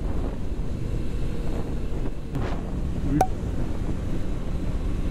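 Wind rushing over the microphone of a motorcycle riding at road speed, an even low rumble that drowns out the engine. There is one short sharp click about three seconds in.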